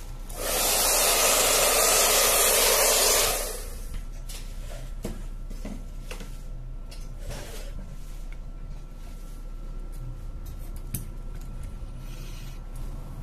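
A burst of compressed air hissing for about three seconds, starting and stopping abruptly, blowing debris off a phone's bare middle frame and the silicone repair mat. Afterwards there are a few faint clicks of handling.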